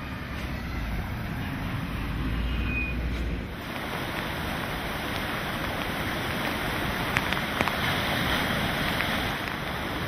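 A car driving past with a deep low rumble. Then, about three and a half seconds in, the sound changes abruptly to heavy surf breaking on a rocky shore in hurricane wind and rain: a dense, steady rush of noise with a couple of sharp clicks near the middle.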